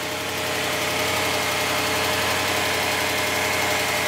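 2008 BMW E92 M3's 4.0-litre V8 idling steadily with a light tick, just started after sitting for about three years.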